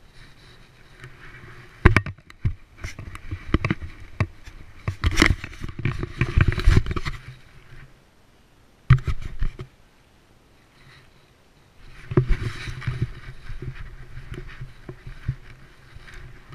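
Knocking, scraping and rubbing from a GoPro on a homemade mount strapped to a Rottweiler as she moves about, with many sharp clicks. It comes in three bursts: a long one of about six seconds starting two seconds in, a short one about nine seconds in, and another of about four seconds near the end.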